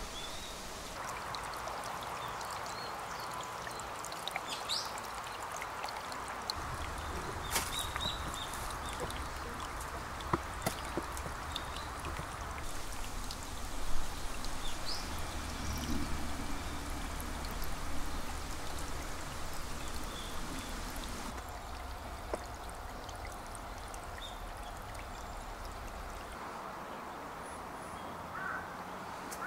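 Shallow spring-fed stream trickling and splashing over stones, a steady running-water sound, loudest about halfway through. A low rumble sits underneath for most of the middle.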